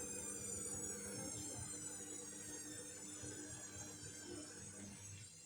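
Candy washing machine drum winding down after a spin: a motor whine whose high tones slowly fall in pitch and fade, over a low hum.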